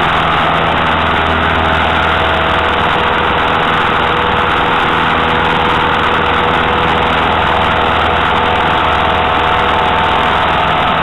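Single piston engine of a Citabria tow plane, heard inside its cabin, running steadily at high power while pulling a glider on aerotow: a loud, unbroken drone.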